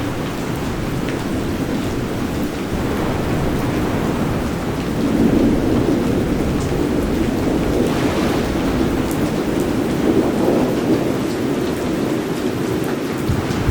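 Steady rain falling with rolling thunder, the rumble swelling about five seconds in and again a few seconds later.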